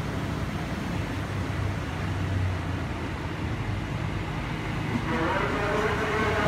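A 205 series electric commuter train pulling into the station: a steady low rumble that grows a little louder as the train nears, with several higher tones joining about five seconds in.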